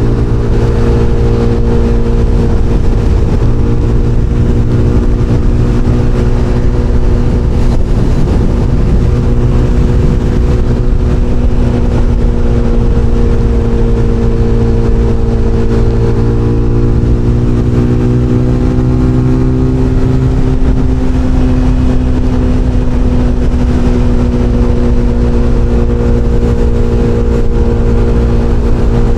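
SBM 250 S sport motorcycle engine running at highway cruising speed, a loud, steady, high-revving note that drifts slightly up and down in pitch as the throttle varies.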